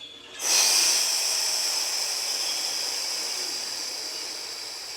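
A long hissing breath out, as in a snore, starting suddenly about half a second in and slowly fading away.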